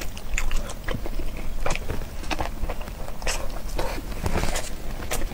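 Close-miked eating: biting into and chewing a crisp-skinned sausage dipped in chili oil, heard as wet, crunchy clicks that come irregularly, thickest about four seconds in.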